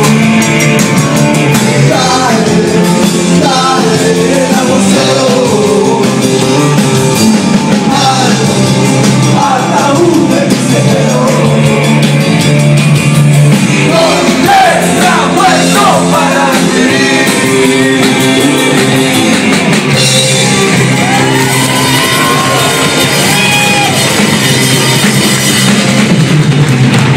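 Rock band playing live, a lead voice singing over electric guitar and drums with cymbals, loud throughout.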